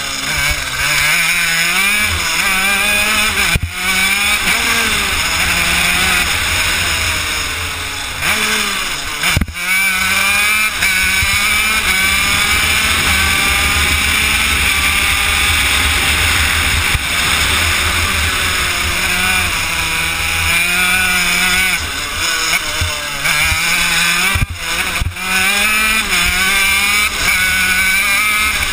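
Honda CR80 two-stroke single-cylinder engine of a shifter kart, recorded onboard, revving hard and falling back again and again as the kart accelerates out of corners and brakes into them, with a long rising run in the middle on the straight and several brief sharp breaks in the sound.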